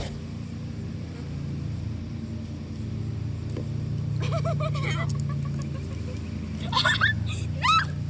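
A steady low motor hum runs throughout. Short high voices with sliding pitch come in about four seconds in and again near the end.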